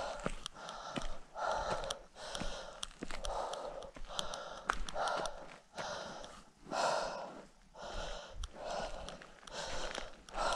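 A hiker breathing hard, in and out about once a second, with footsteps scuffing and clicking between the breaths.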